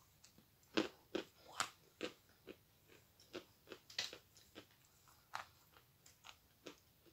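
Teeth biting into and chewing a large chunk of Akbulak chalk: a run of irregular crisp crunches, roughly two a second, the strongest ones in the first second or so and again around four seconds in.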